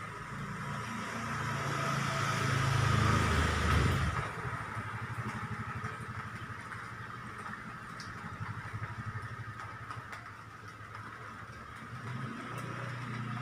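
A motor vehicle engine driving past: it grows louder to a peak about four seconds in, then drops to a weaker pulsing rumble, and an engine rises again near the end.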